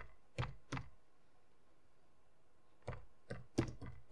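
Computer keyboard keys tapped one at a time: two taps within the first second, a pause, then a quick run of taps near the end.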